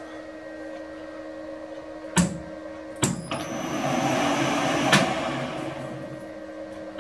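Lathe motor on a variable frequency drive: two sharp clicks from the controls, then the motor starts about three seconds in with a high-pitched whine from the drive over a mechanical hum. The sound swells, then dies away as the motor runs down near the end.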